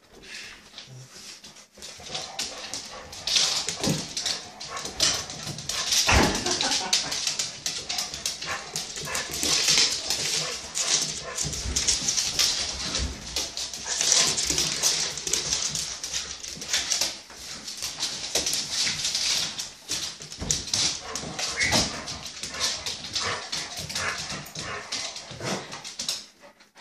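A dog playing tug-of-war with a towel on a slippery hardwood floor: the towel whipping and flapping in quick, irregular strokes and paws scrabbling, with the dog whining.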